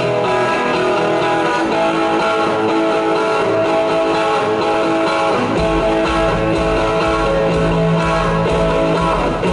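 Live rock band playing, led by electric guitars. A deep low end comes in about halfway through.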